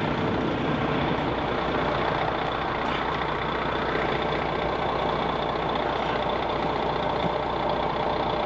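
Heavy vehicle engine, likely the truck being loaded, idling steadily with a constant hum.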